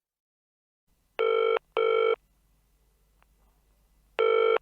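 Telephone ringing with a double ring: two short, steady rings about a second in, a pause, then the next ring starting near the end.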